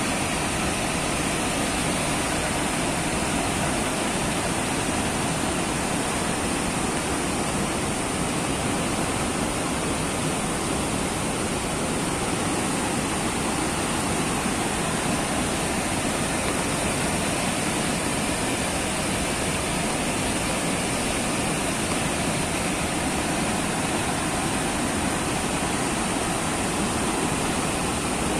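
Muddy floodwater of a river in spate rushing through rocky rapids: a steady, unbroken rush of churning water.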